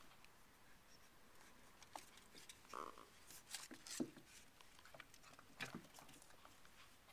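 Near silence, with a few faint scattered taps and rustles; the sharpest is a click about four seconds in.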